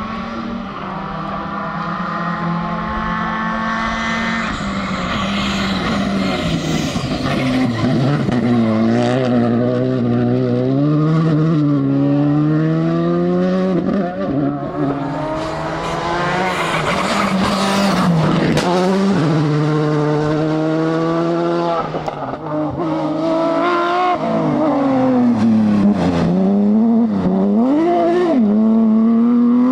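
Rally car engine at full stage pace, revs climbing through the gears and falling sharply on lifts and downshifts, over and over. Near the middle there is a burst of rougher noise, and the pitch dips and recovers twice near the end.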